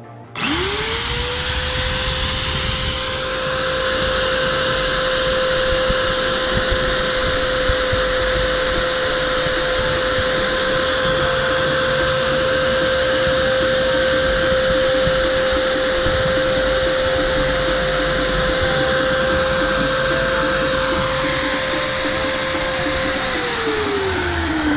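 Corded electric drill mounted in a drill-press stand, spinning up about half a second in and running at a steady high speed. It winds down near the end, its pitch falling as it slows.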